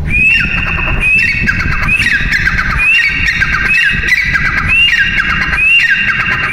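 Grey francolin (teetar) calling loudly, about seven calls roughly a second apart. Each call is a sharp high note followed by a falling run of shorter notes.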